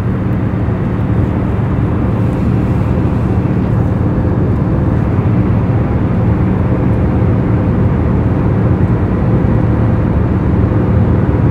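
Steady low rumble of aircraft engine noise with a constant droning hum, unchanging throughout.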